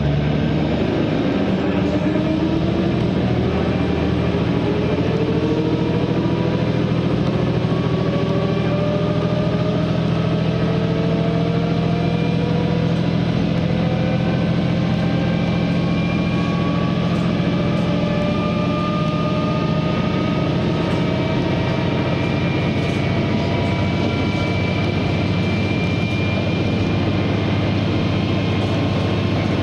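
KiHa 120 diesel railcar's Komatsu diesel engine pulling hard under acceleration. Its low note holds steady while several whines climb slowly and evenly in pitch as the railcar gathers speed.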